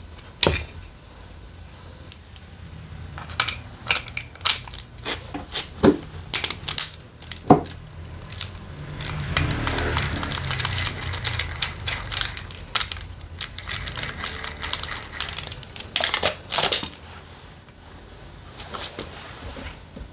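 Metal tools and small engine parts clinking and knocking during engine disassembly: a run of sharp separate clicks, with a denser rattling stretch around the middle.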